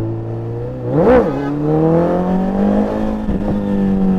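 Motor vehicle engine running, with a quick rev blip about a second in, then its pitch rising steadily as it accelerates before levelling off.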